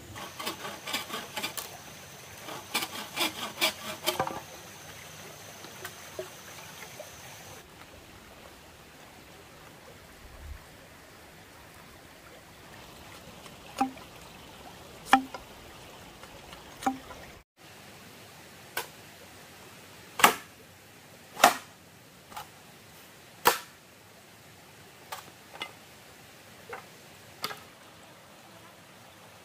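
A long knife chopping into a green bamboo pole: single sharp knocks about one to two seconds apart, the loudest a little past the middle. In the first few seconds there is a quick run of clattering knocks.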